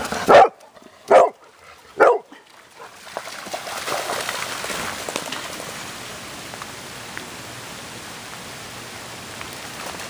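Golden retriever barking three times in quick succession, short loud barks a little under a second apart, then steady rain.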